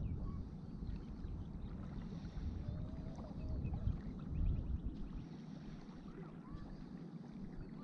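Wind buffeting a head-mounted camera's microphone, gusting unevenly and easing off about five seconds in, with a faint higher hiss coming and going above it.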